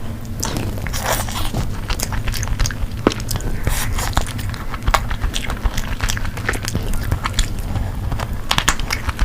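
Close-miked eating: a person biting and chewing food, a dense run of short wet clicks and crunches over a low steady hum.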